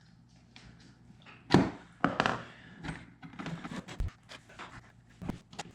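Scattered knocks, clicks and thumps of hands handling dishwasher parts and tools. The loudest thump comes about a second and a half in.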